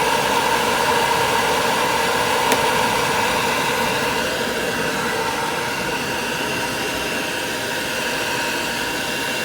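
Hair dryer blowing steadily, a rush of air with a steady motor hum, easing a little after about four seconds; a single faint click about two and a half seconds in.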